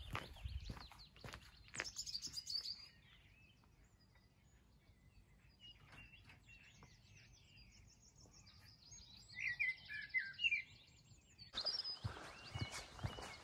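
Small birds chirping and singing, loudest a little before ten seconds in. Footsteps on a dirt path are heard in the first couple of seconds and again after a change in the sound near the end.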